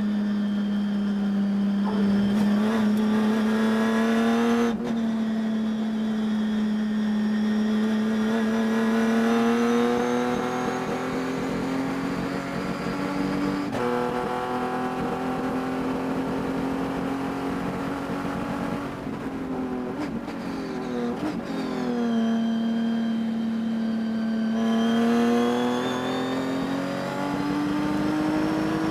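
Race car engine running hard, its pitch climbing slowly in long pulls, breaking about 5 and 14 seconds in and wavering around 20 seconds before climbing again. The engine has a high-RPM misfire that the owner could not cure.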